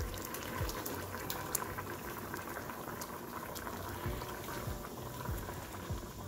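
Pot of meat curry boiling on the stove, its liquid bubbling steadily with a constant patter of small pops.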